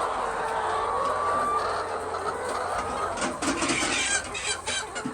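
A flock of laying hens clucking and calling in a poultry house, with a faster run of short clucks starting about three seconds in.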